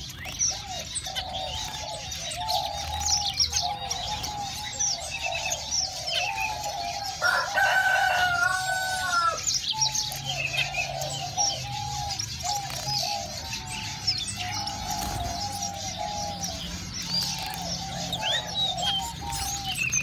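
Aviary birds calling: a steady run of short repeated calls with many high chirps over them, and a louder, drawn-out call about seven seconds in.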